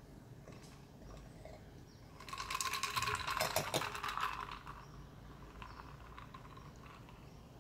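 Ice cubes clicking and clinking in a glass of beer as it is lifted: a dense run of quick clicks with a light glassy ring, starting about two seconds in and lasting about two seconds.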